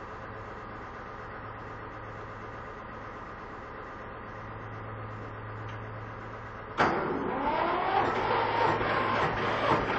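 Porsche Diesel Junior 108 tractor's single-cylinder air-cooled diesel engine starting: a steady low hum at first, then about seven seconds in the engine fires and the sound jumps suddenly to a loud, uneven knocking run with a rising pitch as it catches.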